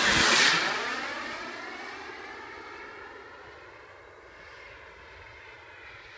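Radio-controlled jet's KingTech K45 turbine whining in a close fly-by: loudest in the first half second, its pitch dropping as it passes overhead, then fading steadily as it flies away.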